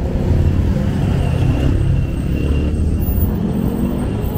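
Road traffic: a motor vehicle's engine running steadily with low road noise.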